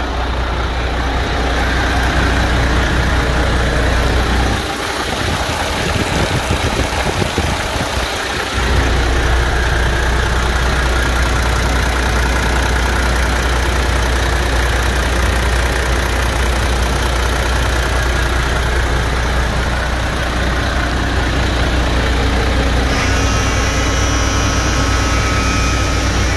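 MAN TGX 480's D26 straight-six diesel engine idling steadily with a deep low hum.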